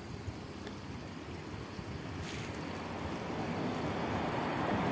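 A road vehicle approaching, its sound growing steadily louder from about halfway through.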